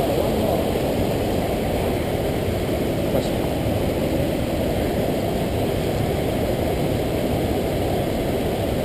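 Waterfall: the steady rushing of falling water, a dense, deep noise that holds even throughout.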